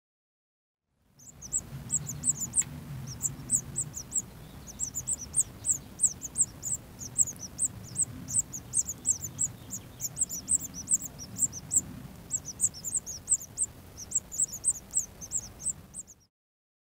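Small birds chirping: many short, high chirps, several a second and irregular, over a faint low hum. The chirps begin about a second in and cut off suddenly near the end.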